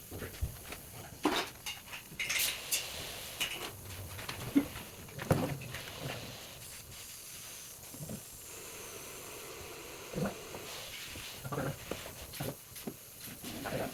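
Irregular knocks and clinks of hoses and fittings being handled, with short bursts of hissing as compressed air pushes flushing fluid through the car's air-conditioning lines. The longest hisses come about two to three seconds in.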